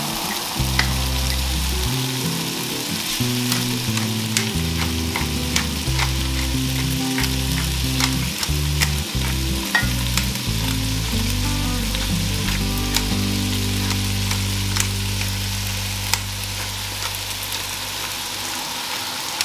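Sliced onion, garlic, carrots and potatoes sizzling in olive oil in an enameled cast-iron Dutch oven, with the clicks and scrapes of a silicone spatula stirring against the pot, then a pepper mill grinding. Low background music plays underneath.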